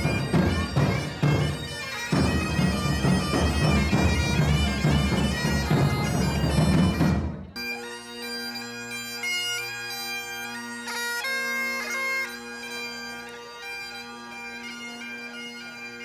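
Great Highland bagpipes playing a tune, steady drones held under the chanter melody, recorded on a phone. The first stretch is loud and harsh, heavy in the bass. About seven and a half seconds in, it cuts to a quieter, cleaner recording in which the drones and the chanter tune stand out clearly.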